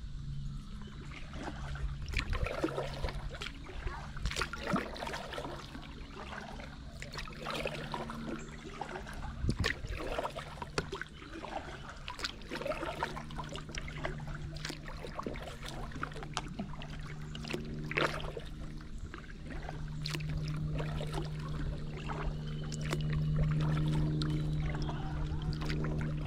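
Water splashing and dripping from paddle strokes as a kayak moves along a slow river, with many small ticks and trickles. A steady low hum grows louder near the end.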